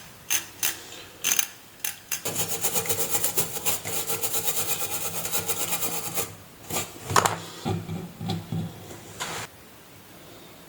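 Small mechanical clicks, then about four seconds of fast, even ratcheting rattle with a steady hum under it, then a few more clicks.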